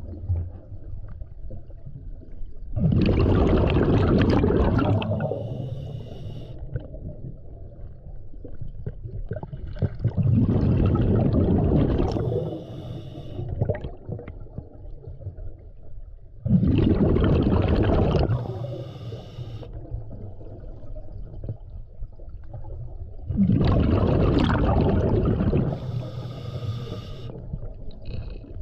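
Scuba diver breathing through a regulator underwater. Four loud, bubbling bursts of exhaled air come about every six to seven seconds, and each is followed by a shorter, higher hiss from the regulator.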